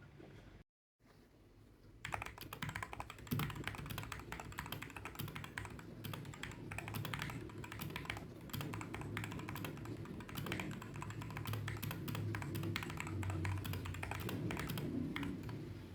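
Continuous fast typing on a mechanical keyboard: a dense, steady run of key clicks starting about two seconds in.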